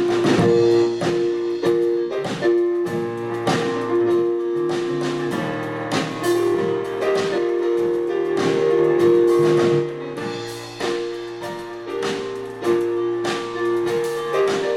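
Instrumental intro of a worship song: held keyboard chords over a steady drum beat.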